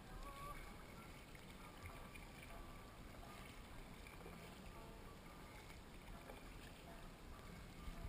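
Faint water sounds of a kayak being paddled on a calm river: the paddle dipping and water trickling against the hull, with a low rumble underneath.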